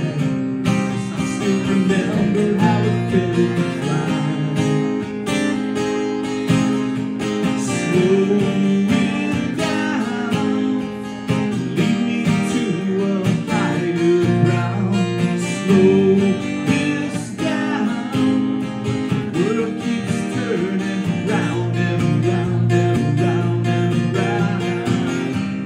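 Live acoustic guitar strummed in a steady rhythm through an instrumental stretch of a song, with a wordless vocal line coming and going over it.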